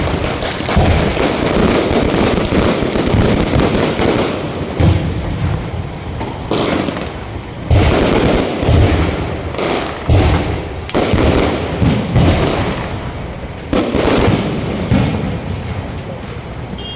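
Aerial fireworks going off: shells bursting with low booms every second or two, with crackling between the bursts.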